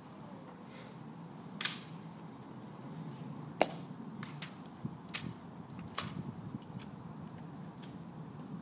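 Sharp clacks of an M14 rifle being handled in a ceremonial rifle inspection: a series of single snaps under a second apart, the loudest about three and a half seconds in.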